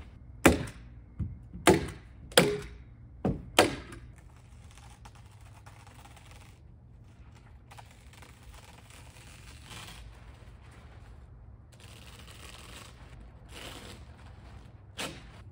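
A quick series of sharp strikes in the first four seconds as house wrap is fastened down over OSB wall sheathing, then the plastic wrap rustling as it is handled, and one more strike near the end.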